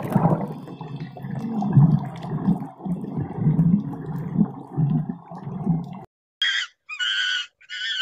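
A low, wavering drone with sliding, moaning tones that cuts off about six seconds in. Four short, high-pitched animal calls follow in quick succession, each about half a second long.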